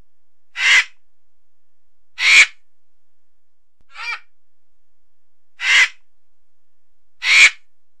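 Vulture calling: a harsh, raspy squawk repeated five times, each short, about a second and a half apart.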